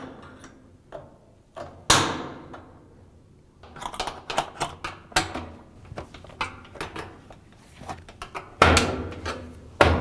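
Metal spring clips on a Whirlpool direct-drive washer's cabinet being pushed down into place with a flathead screwdriver: sharp metallic snaps and scraping clicks. A loud snap with a short ring comes about two seconds in, a run of small clicks and scrapes follows, and a louder clatter of snaps comes near the end.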